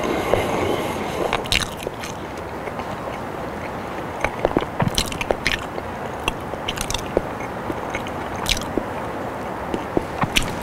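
Close-miked mouth sounds of a man eating boiled potato: soft chewing with scattered wet clicks and smacks, over a steady hiss.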